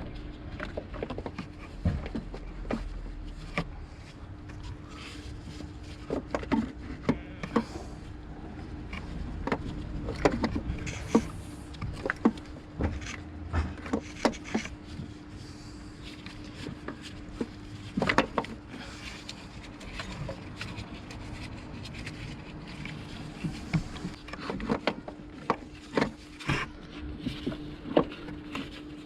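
Irregular clicks, knocks and scraping of hand tools and metal parts as a starter motor is refitted to the engine, over a steady low hum.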